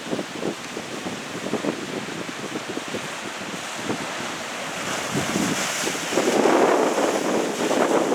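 Strong wind buffeting the microphone over the rush of waves, gusting irregularly and growing louder about six seconds in.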